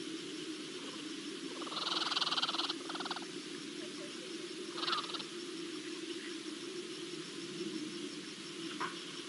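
A rapid trilling animal call in two short parts about two seconds in, over a steady low drone, with a brief chirp near the middle and another near the end.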